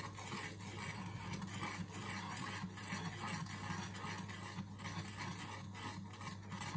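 Metal spoon stirring and scraping against the bottom of a small frying pan, dissolving sugar in water, in a string of light scrapes over a steady low hum.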